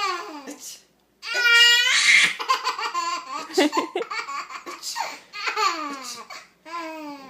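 Baby laughing in repeated bursts, each laugh falling in pitch, with the loudest, squealing laugh about a second and a half in, amused by her father's sneezes.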